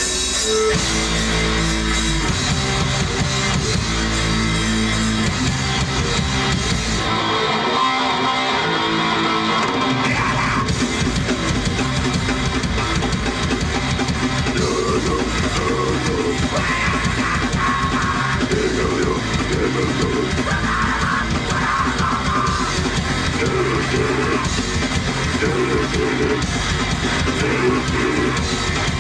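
Live rock band playing a heavy song on distorted electric guitar, bass and drum kit. The low bass drops out for a few seconds about seven seconds in, then the full band comes back in.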